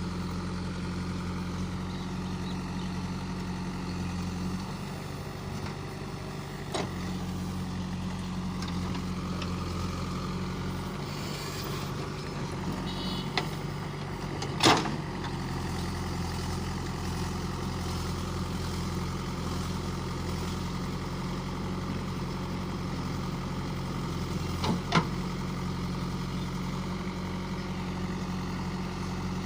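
Diesel engine of a tractor or backhoe loader running steadily, its speed changing a few times. A few sharp knocks break in, the loudest about halfway through.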